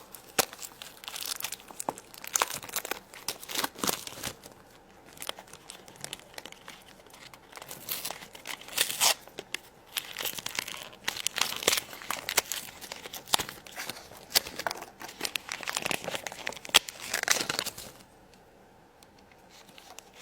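Crinkling and tearing of plastic packaging as a Shopkins basket surprise pack is unwrapped by hand, in irregular handling bursts that die down near the end.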